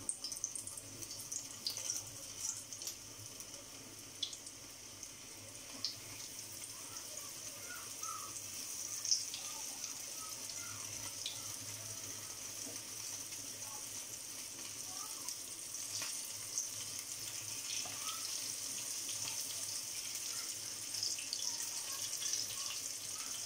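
Flour-coated milkfish pieces frying in hot oil in a pan: a steady sizzling hiss with scattered small pops and crackles, growing slowly louder.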